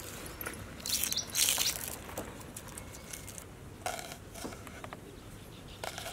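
Kitchen knife slicing a red onion, with a few scattered taps and scrapes on a wooden chopping board. Birds chirp in the background.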